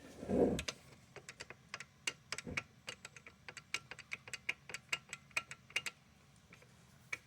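A Makita LXT 36 V rear-handle circular saw rocked by hand: a soft thump, then a long irregular run of light clicks, several a second, from loose pinned pivots knocking. The clicking is the sign of slop in the saw's rear pin joints.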